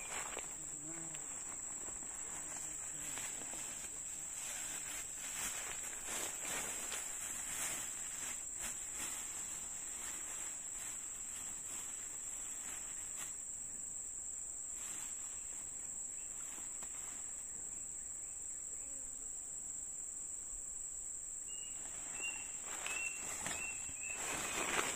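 Insects keeping up a steady, high-pitched shrill chorus, with scattered faint rustles and knocks and a few short, high chirps near the end.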